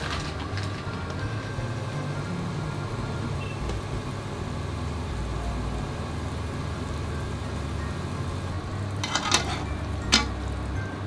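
Light background music, and near the end a metal slotted turner knocking and scraping twice against a frying pan as bagels are turned in simmering water.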